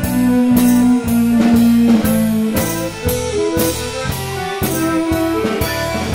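Instrumental passage of a rock song: guitar over a drum kit keeping a steady beat of about two hits a second, with no vocals.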